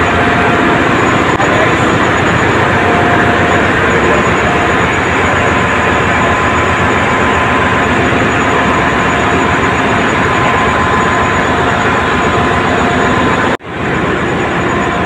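Loud, steady din of ship's engine-room machinery running, with a few faint steady whines on top. It breaks off for an instant near the end, then carries on.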